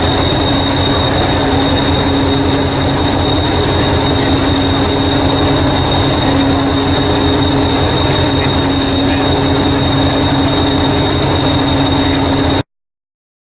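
Train running: a loud, steady rumble with a constant high squeal over it, cutting off abruptly near the end.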